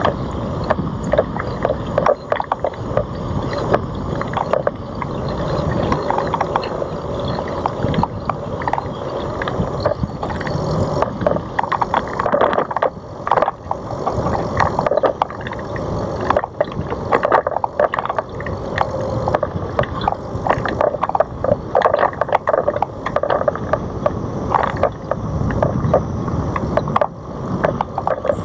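Ride noise from a Citibike rolling along a paved park road: a steady rumble with frequent, irregular rattles and knocks.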